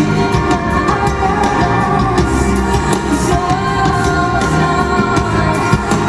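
Live concert recording of a song in progress: a female singer's voice over piano and accompanying instruments.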